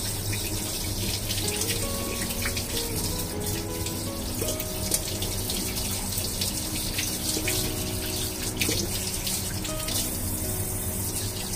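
Tap water running steadily from a kitchen faucet over hands and raw oysters as they are rinsed and rubbed clean, with background music.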